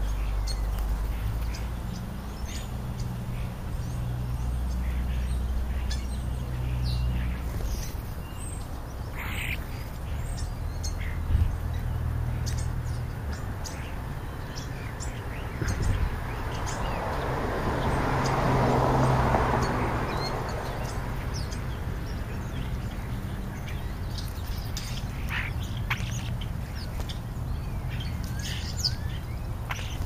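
House sparrows and European starlings chirping and calling in short, scattered notes. A rushing noise swells and fades a little past the middle, louder than the birds.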